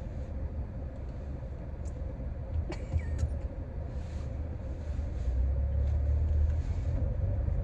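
Car cabin noise while driving: a steady low rumble from the engine and road, heard from inside the car, getting a little louder past the middle. A few short clicks about three seconds in.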